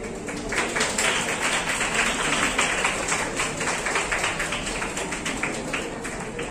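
Audience applauding, building up about half a second in and thinning out near the end.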